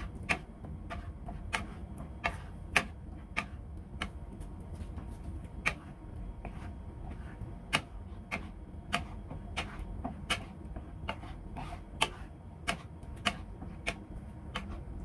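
Wooden spatula knocking and scraping against a nonstick frying pan while stirring thick curry: irregular sharp clicks about once or twice a second, over a low steady hum.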